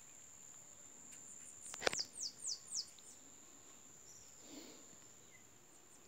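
A steady, high-pitched insect trill runs throughout. About two seconds in, a bird gives a quick run of four falling whistled notes, just after a single sharp click.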